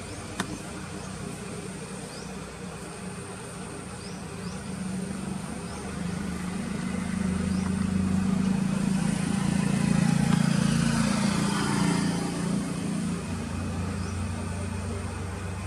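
Engine noise of a passing vehicle, swelling to a peak about ten seconds in and then fading, over a steady faint high-pitched whine, with a few short high chirps and a single click near the start.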